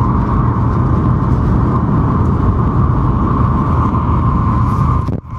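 Steady rumble and hum inside the passenger cabin of an N700 series Shinkansen travelling at speed, with a constant higher whine over the low drone. The sound dips sharply for a moment near the end.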